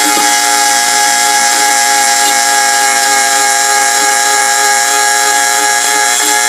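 Electric power sander running steadily: a constant motor whine with several steady tones over a loud sanding hiss, used to sand down the caboose's wooden sides and roof.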